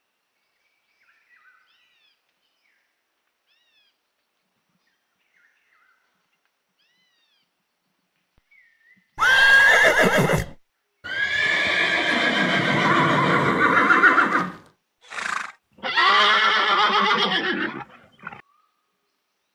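Horse whinnying: after faint short chirps, a short neigh about halfway through, then a long wavering whinny, a brief call and another long whinny.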